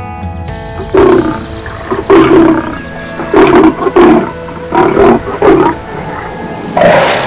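A series of about seven short, loud animal calls, roughly a second apart, over background music.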